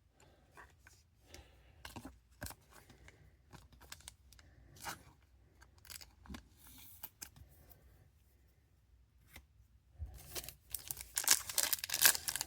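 Trading cards handled with faint clicks and rustles, then, about ten seconds in, a foil card pack wrapper is torn open with loud crinkling and tearing.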